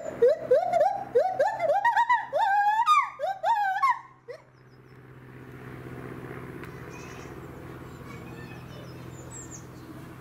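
Gibbon calling: a run of whooping hoots that climb in pitch and come faster and faster, breaking into higher, wavering notes at the climax, then stopping about four seconds in.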